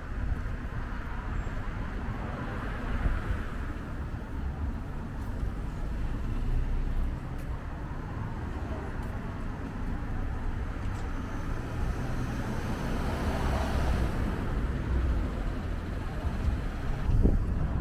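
City street ambience: a steady traffic rumble, with a few vehicles swelling past.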